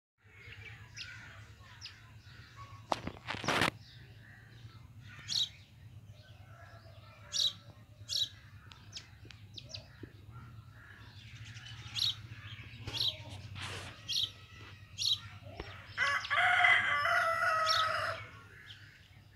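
Small birds chirping in short, scattered calls. A rooster crows once near the end in one long call of about two and a half seconds, the loudest sound here. A brief loud rustle comes about three seconds in, over a low steady hum.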